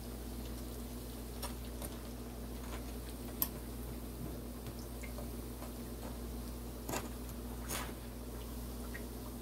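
Festival dough frying in hot oil in a skillet: a low steady sizzle, with a few light clicks of a metal fork against the pan, the sharpest about three and a half seconds in.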